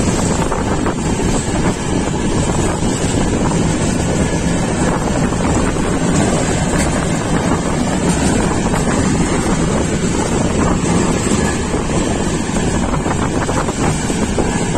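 Steady rush of wind on the microphone at a moving passenger train's window, mixed with the running noise of the Coromandel Express on the track.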